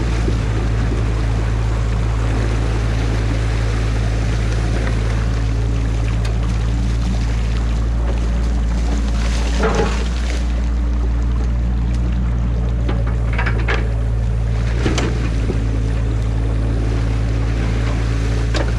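Mini excavator's diesel engine running with a steady low hum over rushing stream water, with a few sharp knocks and cracks about halfway through and again later as the bucket tears into the beaver dam's sticks and mud.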